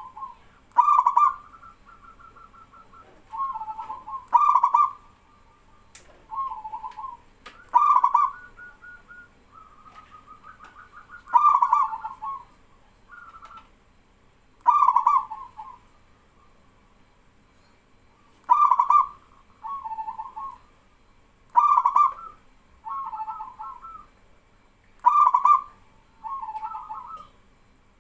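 Zebra doves (perkutut) cooing, a male in full song with other doves answering back and forth. Loud coo phrases come every three to four seconds, with quieter coos between them.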